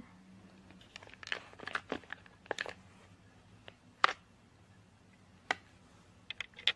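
Cardboard boxes and plastic packaging handled: scattered rustling and crinkling with several sharp clicks and taps.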